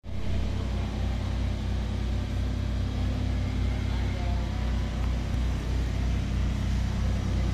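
A steady low motor hum with a slight pulsing, with faint voices in the background.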